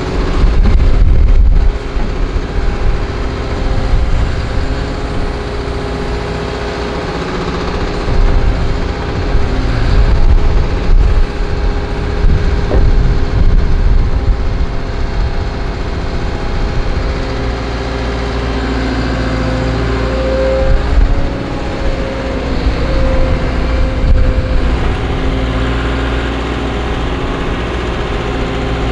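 Caterpillar M314F wheeled excavator's diesel engine running, its level rising and falling as the hydraulics work the boom and bucket, with occasional knocks.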